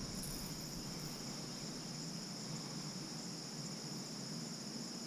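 Steady, continuous high-pitched chirring of an insect chorus, unbroken for the whole stretch.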